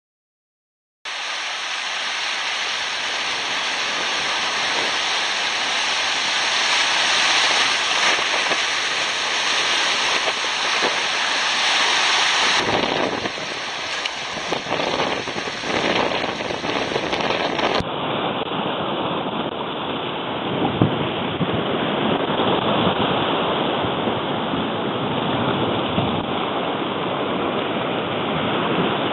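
Water splashing and rushing over rocks, then, after a cut about 18 seconds in, sea waves washing against a rock ledge with wind buffeting the microphone.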